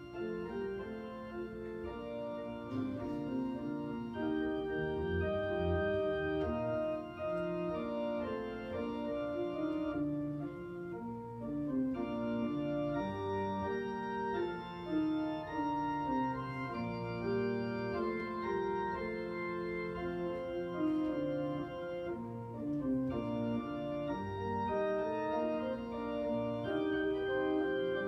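Organ playing slow music in held chords, the notes changing every second or two.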